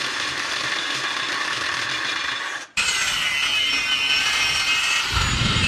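A cordless drill bores into square steel tubing with a steady grinding whir. Partway through it cuts abruptly to an abrasive cut-off wheel slicing through square steel tubing, a louder steady screech, and a low rumble joins near the end.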